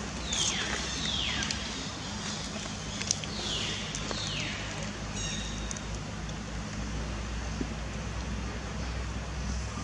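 Infant macaque giving short, high, falling cries, two in quick succession and then two more a few seconds later, over a steady low hum.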